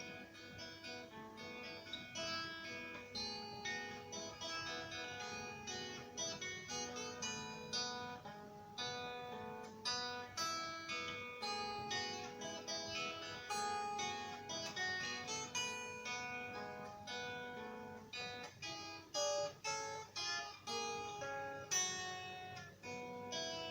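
Acoustic guitar tuned a half step down, playing a melody of plucked single notes and chords.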